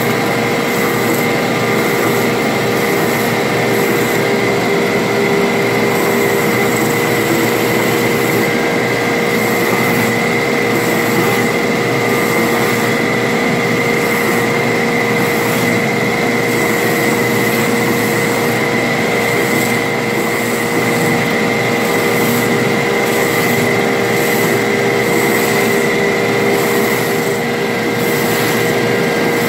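Stroke sander running, its long abrasive belt sanding a wooden autoharp panel pressed down with a hand block: a steady, loud machine noise with a constant hum and a higher whine.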